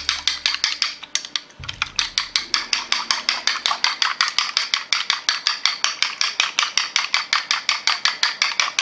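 Chopsticks beating eggs in a stainless steel bowl: fast, even clicking of the chopsticks against the bowl, about eight strokes a second, with a brief pause about a second in.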